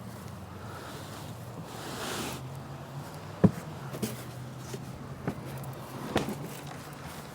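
Hand-mixed wet concrete being worked and poured: a brief scraping swish about two seconds in, then several sharp knocks of a tool against the container, the first the loudest, over a steady low hum.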